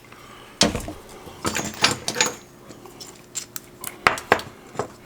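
A series of sharp clicks and knocks from metal and plastic parts being handled: Nissan RB-series ignition coil packs and their bolts being taken off the coil rail and set down.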